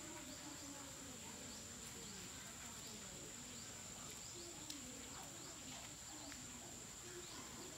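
Quiet outdoor ambience: a steady high-pitched insect drone, with faint scattered bird chirps and faint voices in the background.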